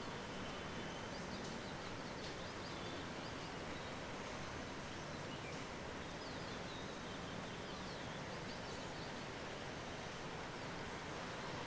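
Steady background hiss, with faint high bird chirps and twitters a few times.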